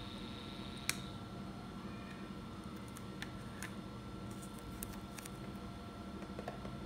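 A single sharp click of the controller box's rocker switch about a second in, after which a faint high whine stops, over a steady low hum. A few small clicks of handling follow as a part is fitted onto the brushless fan motor's shaft.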